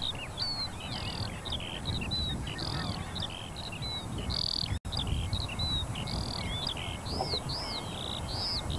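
Many small birds chirping and twittering in quick, overlapping calls, over a low rumble; the sound cuts out for an instant about halfway through.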